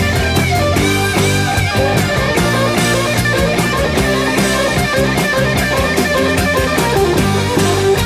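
Background rock music driven by guitar, with a steady beat.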